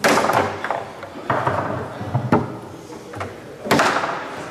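Leonhart foosball table in play: the ball and the spinning rods knocking and slamming against the players' figures, walls and bumpers. There are about half a dozen sharp knocks, irregularly spaced, the loudest at the very start and near the end.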